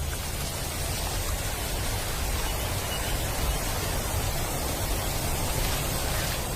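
Steady, even hiss of background noise with no distinct events, like wind or an ambient field recording.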